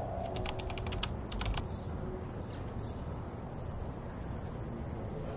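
A quick run of light clicks like computer keyboard typing, lasting about a second and a half, then faint high chirps over a steady low background noise.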